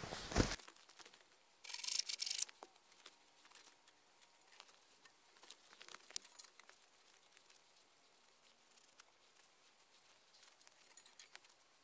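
Faint handling noise from gloved hands and a jacket sleeve on a peeled spruce pole: a brief scraping rustle about two seconds in, then scattered light clicks and rustles.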